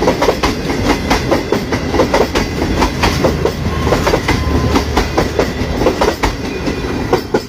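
Express passenger train passing, its wheels clattering over rail joints in a rapid run of clicks over a steady rumble.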